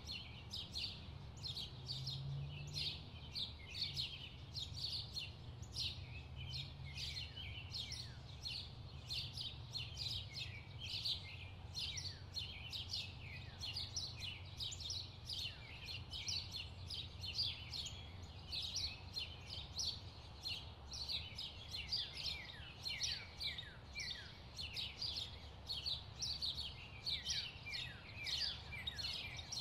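A chorus of small birds chirping continuously, many rapid short chirps that each slide downward in pitch, over a low steady hum.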